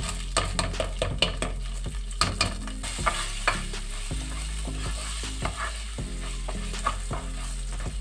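Food frying in a pan, stirred with a utensil: a sizzle with repeated scrapes and knocks against the pan.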